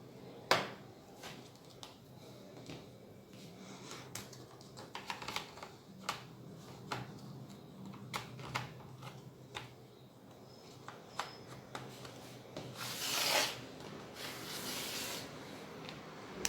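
Plastic snap clips of a laptop's bottom case clicking loose as a plastic pry tool is worked around the edges. There is a series of sharp clicks, the loudest about half a second in, and two scraping rasps near the end.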